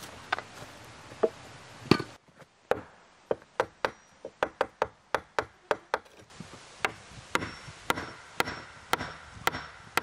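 A tool striking wood over and over: a run of sharp knocks, two to three a second, some with a short faint ring after them.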